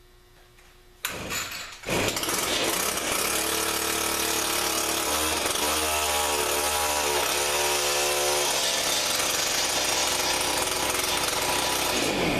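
Gas ice fishing auger's two-stroke Stihl engine, pull-started about a second in and catching almost at once. It runs and revs for about ten seconds, sounding at times as if it is bogging down a bit, and cuts off near the end.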